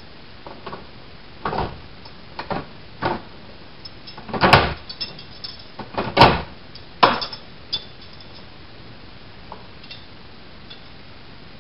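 Metal clicks and clunks from a key being worked in an antique hand-forged safe's trick lock: about nine sharp strikes over the first eight seconds, the loudest about four and a half and six seconds in.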